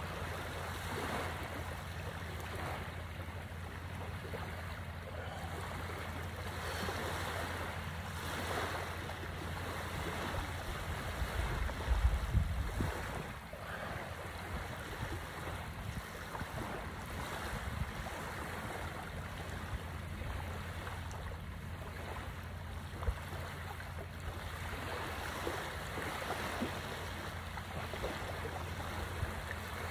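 Small waves washing onto a sandy shore in a steady surf wash that swells now and then. Wind rumbles low on the microphone throughout, with a louder gust about twelve seconds in.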